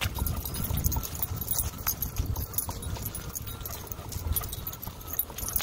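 Wind rumbling on the microphone, with irregular clicks and rattles, as an electric unicycle rolls over bumpy grass.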